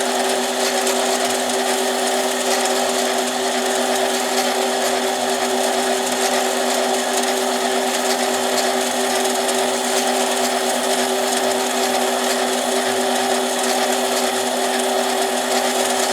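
Small benchtop lathe running steadily with a constant hum, turning a chainsaw piston while its outside edge is chamfered.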